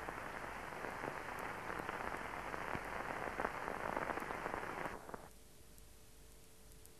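Hiss and crackle of an old 1950 film soundtrack with scattered clicks and pops, cutting off about five seconds in to a faint steady hum.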